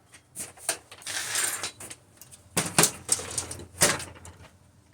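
Clicks and knocks of metal and plastic computer parts being handled during disassembly of a desktop computer, with a short scraping rustle about a second in and two sharper knocks near the three- and four-second marks.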